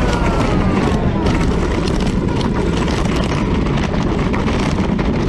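A small ride-on quad bike running past, its motor whine falling in pitch over the first second, under a steady rushing noise.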